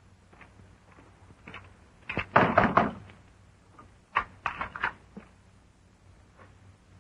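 Knocking on a wooden door by hand: a few quick raps about two seconds in, then a second round of raps about four seconds in.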